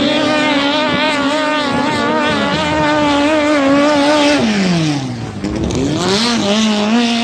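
Racing long-tail boat engine running at high revs as the boat passes close by. The pitch wavers, then drops steeply about four and a half seconds in as the boat goes past, and a second engine tone rises and holds near the end.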